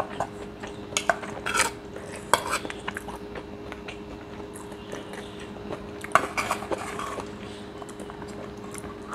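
Metal spoon scraping and clinking against a ceramic plate while scooping up fried rice: a few sharp scrapes in the first two or three seconds and another cluster about six seconds in. A steady low hum runs underneath.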